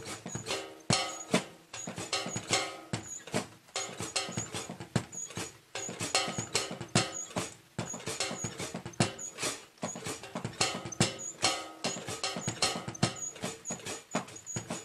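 A drum kit being played, a fast, steady stream of stick strokes over the ringing of the drums and cymbals.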